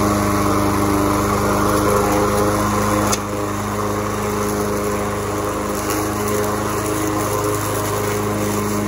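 Craftsman walk-behind push mower's 140cc Briggs & Stratton single-cylinder engine running at a steady speed just after starting, with no grass to cut. There is a brief click about three seconds in, after which the sound is a little quieter.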